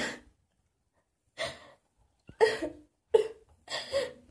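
A girl's voice making five short breathy sounds, roughly a second apart, some of them voiced.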